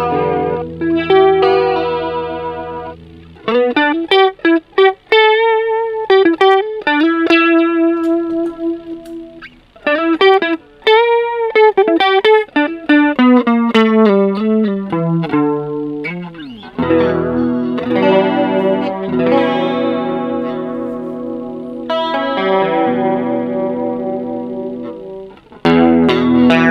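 Electric guitar played through a chorus pedal, first the Ibanez SC10 Super Stereo Chorus and later the Boss CE-2. Held chords give way to a single-note melody whose notes waver in pitch, and then the guitar moves back to chords.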